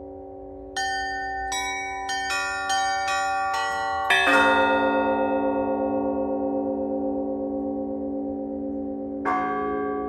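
Russian Orthodox church bells of the Epiphany Cathedral bell tower, rung by hand. A quick run of about eight strikes on the smaller bells, then a heavier, lower bell struck at about four seconds and left to ring out with a slow beating hum, and another strike near the end.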